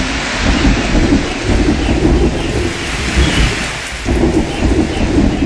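Library sound-effect tracks playing together as one mix: a steady hiss of rain over rolling thunder, loud throughout.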